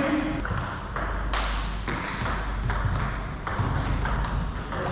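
Table tennis rally: the celluloid ball clicking sharply off paddles and the table, a series of irregularly spaced hits about half a second to a second apart.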